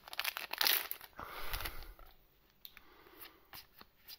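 A trading-card booster pack being torn open, its wrapper crinkling for about two seconds. After that come fainter light clicks and rustles as the cards are slid out and handled.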